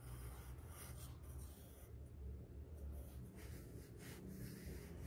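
Pencil scratching faintly on paper in a series of short strokes as the curly outline of a lion's mane is drawn.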